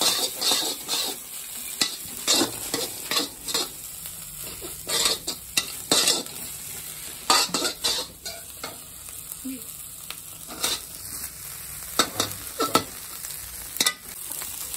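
Steel spatula stirring and scraping an egg and vegetable stir-fry in a metal wok, with irregular scrapes and knocks against the pan over a steady frying sizzle.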